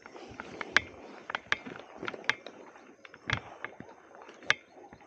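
Irregular sharp mechanical clicks from a spinning fishing reel being handled and turned, about a dozen over a few seconds, the loudest about three-quarters of a second in and again just before the end.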